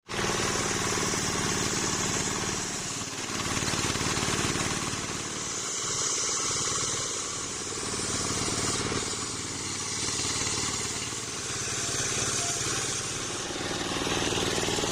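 Engine driving a homemade circular saw, running steadily throughout, with a high hiss and the overall loudness swelling and easing every few seconds.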